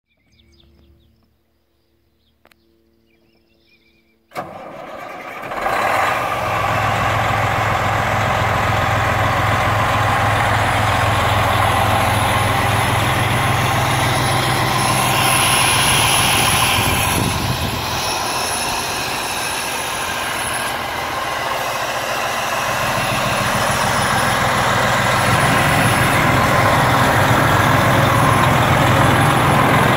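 Freightliner Columbia semi tractor's diesel engine starting after about four quiet seconds, catching and then idling steadily.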